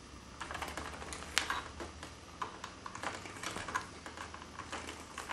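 Lineman's pliers twisting four solid copper wires together into a splice: irregular small clicks of the wire and plier jaws, one louder about a second and a half in.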